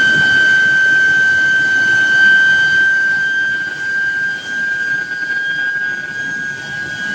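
Steel billet induction heating furnace running, giving off a steady high-pitched whine over an industrial rumble and hiss. The whine edges slightly higher in pitch about halfway through.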